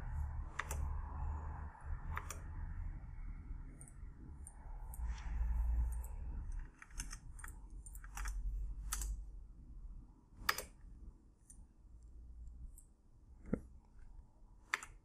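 Irregular clicks of a computer mouse and keyboard, about a dozen scattered taps, over a low rumble that fades about halfway through.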